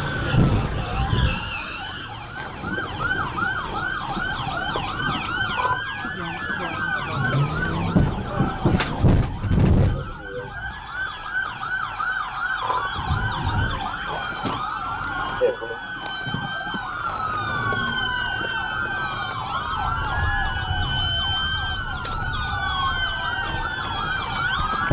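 Several police car sirens sounding at once, overlapping slow wails and fast repeating yelps, over engine rumble. A few sharp knocks come about nine seconds in.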